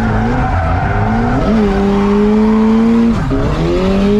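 Mazda Miata drift car's engine heard from inside the cabin, held high in the revs while drifting, with tyre squeal. The revs dip sharply about three seconds in and then climb again.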